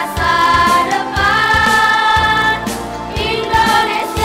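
Boys' choir singing long held notes together, in phrases that break about a second in and again near three seconds.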